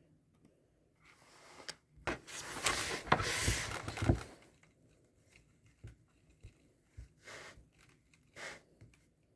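Rustling and crinkling of packaging being handled, a dense spell of it about one to four seconds in, then a few lighter rustles and taps.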